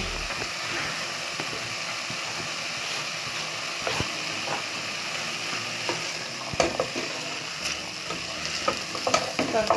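Chopped spinach, onions, green peppers and celery sizzling in oil in a metal pot as a wooden spoon stirs them. The spoon knocks against the pot now and then, more often near the end.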